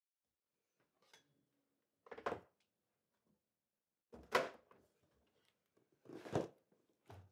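Rummaging in a cardboard box: three short rustles and scrapes of cardboard and the things inside being handled, about two seconds apart, with a lighter knock near the end.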